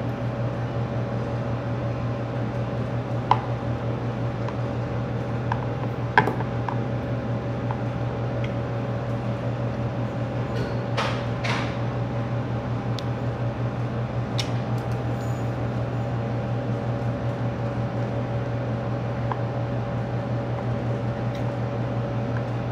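Window air conditioner running with a steady hum. A few sharp clicks of a spoon and fork against a plastic food container are heard over it, the loudest about six seconds in.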